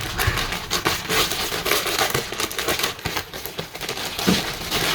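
Packaging crinkling and rustling, with irregular crackles throughout, as it is handled and opened during an unboxing.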